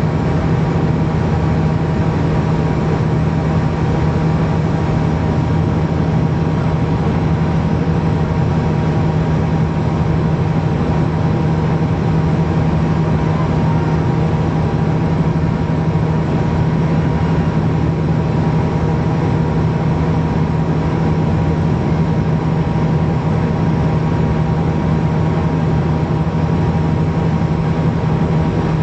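Cabin noise of a Bombardier Q400 turboprop on approach with its landing gear down: the Pratt & Whitney PW150A engines and six-bladed propellers running steadily, a strong low hum over an even rushing noise.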